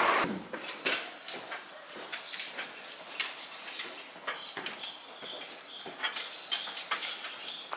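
Small songbirds chirping and twittering throughout, with scattered light taps mixed in.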